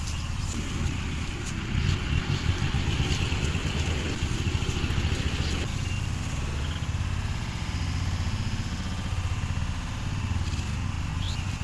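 Engine of a rice-harvesting machine running steadily with a fast, even low throb while it cuts paddy.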